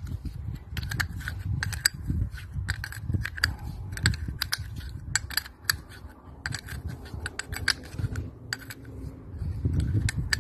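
Steel ring spanner loosening the terminal nuts on a Paris Rhône starter's solenoid contactor: a run of sharp, irregular metal clicks and clinks, several a second.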